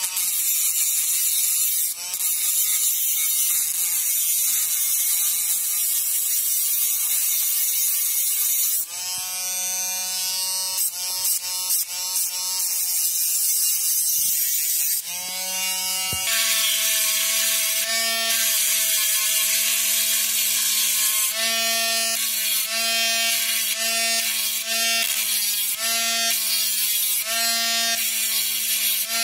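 Cordless mini rotary grinder spinning a pink grinding stone against a steel utility-knife blade: a high motor whine with gritty hissing of stone on steel. The pitch drops now and then and the sound breaks briefly several times in the second half as the stone bears on and lifts off the blade.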